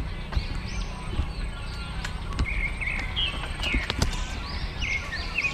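Birds calling over and over with quick high chirps that rise and fall, several a second, over a steady low rumble, with a few sharp knocks.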